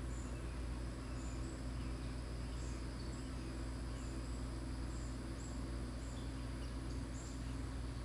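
Steady low rumble with scattered faint, short, high-pitched chirps every second or so.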